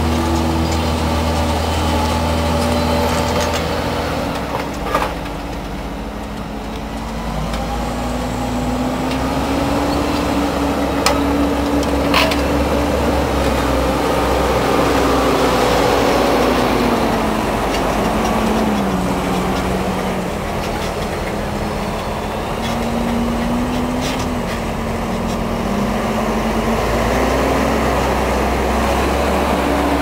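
Fendt 724 tractor's diesel engine working under load while pulling a reversible plough through stubble. Its pitch drifts up and down as the load changes. There are a few sharp knocks.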